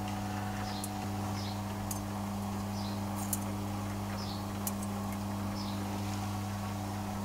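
Steady electric hum of a charcoal grill's rotisserie motor. Over it come scattered light metallic clicks and short faint squeaks about every second from the turning gear-driven rods and the tongs on the grill.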